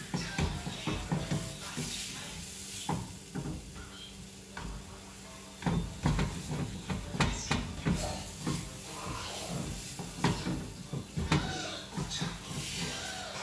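Plastic slotted turner scraping and knocking against a nonstick frying pan as thick batter is stirred and pushed around, a run of irregular scrapes and taps that gets busier and louder from about six seconds in.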